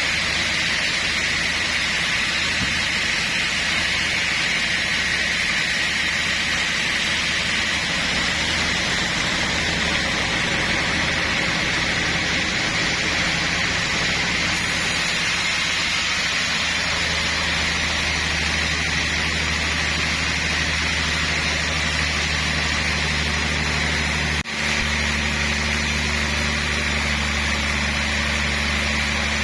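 Sawmill machinery running steadily: a low engine hum under a loud, even, hissing whine, the engine tone growing stronger a little past halfway, with a brief break about 24 seconds in.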